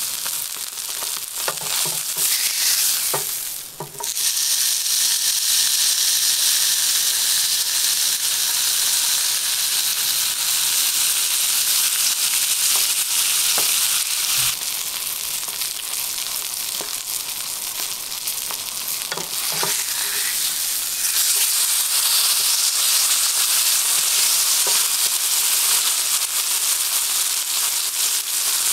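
Striploin steak searing on high heat in a cast-iron pan: a steady, loud sizzle of fat and meat juices, with a few sharp pops and crackles, and a brief dip about four seconds in.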